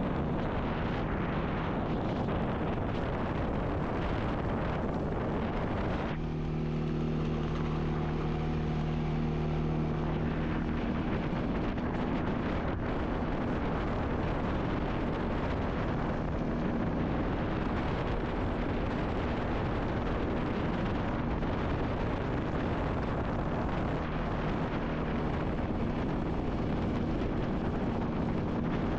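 ATV engine running steadily as it pushes a snow plow. About six seconds in, the sound drops to a steadier, smoother hum for a few seconds, then picks up again.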